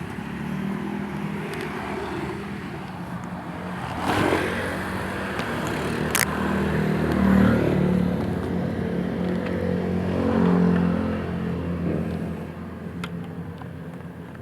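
Yamaha YTX 125 cafe racer's single-cylinder four-stroke engine running on a ride, its revs swelling and easing several times. A short sharp click comes about six seconds in.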